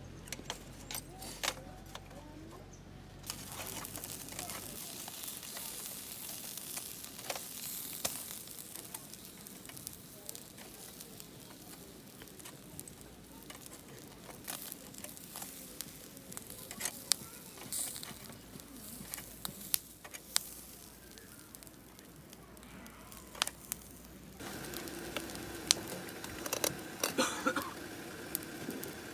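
Food sizzling in a hot pan, a steady frying hiss dotted with frequent sharp pops and crackles.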